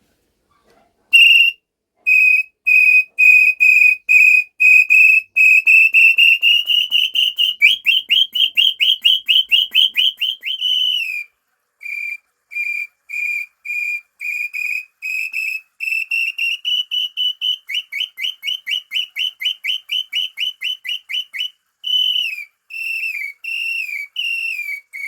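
Handmade inhambuguaçu (brown tinamou) call whistle blown in imitation of the bird's song: a series of clear whistled notes that starts slow, then speeds up and rises slightly in pitch, the later notes slurring downward, and ends on a longer falling note. About a second later a second series begins, again speeding up and rising, and it ends in a few drawn-out falling notes.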